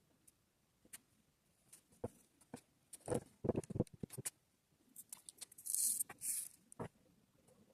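Diamond painting pen tapping resin drills onto a sticky canvas: irregular small clicks and taps, with a quicker run of taps about three to four seconds in and a short high rustle around six seconds in.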